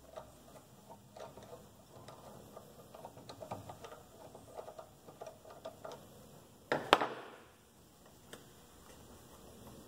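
Feed handle being worked off the spindle hub of a Harbor Freight 8-inch bench drill press by hand: a run of small metal ticks and rattles, then one loud sharp click about seven seconds in. The drill press is not running.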